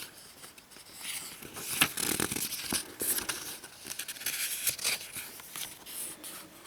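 Paper rustling and crinkling in irregular bursts as sheets of paper are handled and leafed through.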